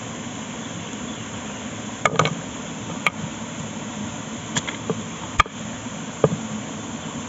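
Kitchen knife chopping a carrot on a wooden board: about seven sharp, unevenly spaced chops, starting about two seconds in, over a steady background hiss.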